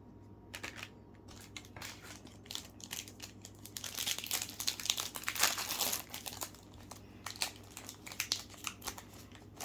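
Plastic wrapper of a football trading-card pack crinkling and tearing as it is handled and opened, a run of crackles that is densest and loudest in the middle.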